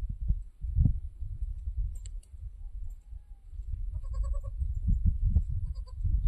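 A goat bleating twice: a wavering bleat about four seconds in, then a shorter one near the end. Under it runs a low rumbling noise, with a couple of sharp clicks about two seconds in.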